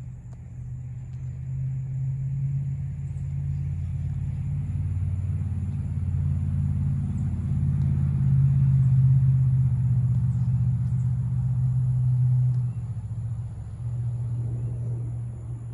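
Jet airliner passing overhead: a low engine rumble that builds over several seconds, drops suddenly about thirteen seconds in, then goes on somewhat lower.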